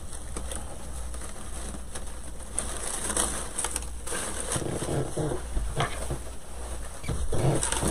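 Rustling and handling of artificial greenery stems and craft supplies, with small clicks and knocks as things are moved about. A faint low humming sound comes in about halfway through.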